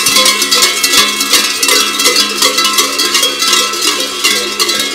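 Large cowbells hung from the belts of several kurent sheepskin costumes, clanging continuously as the wearers run and hop. The result is a loud, dense jangle of many overlapping bells.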